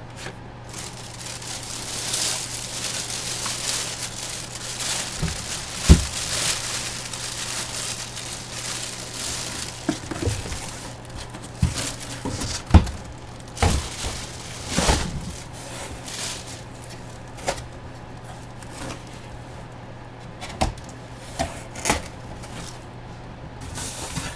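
Packaging crinkling and rustling as a collectible box is handled and opened, with several sharp knocks, the loudest about six seconds in.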